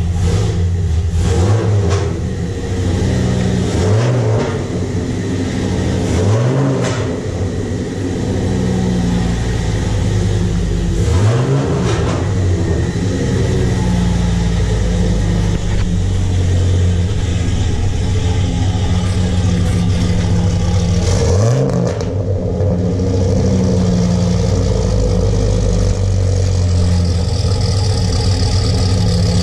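Dodge Ram SRT-10's 8.3-litre V10 idling through a Belanger aftermarket exhaust, blipped to a short rev four times along the way.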